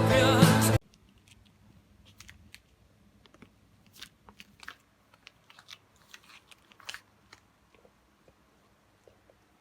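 Background music cuts off just under a second in, followed by scattered small crackles, clicks and rustles of packaging being handled and opened.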